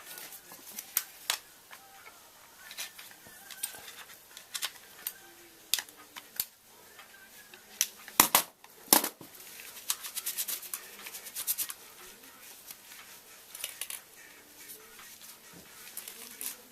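Small hand tools and plastic and metal parts clicking and rattling as they are handled, with a few sharper clicks about eight and nine seconds in.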